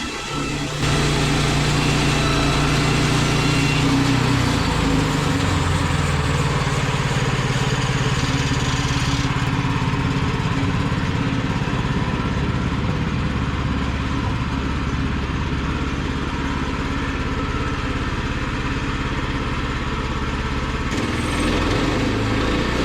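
Engine of a Woodland Mills portable bandsaw sawmill running steadily under power. It starts about a second in, and about nine seconds in the higher hiss fades while the engine note shifts slightly.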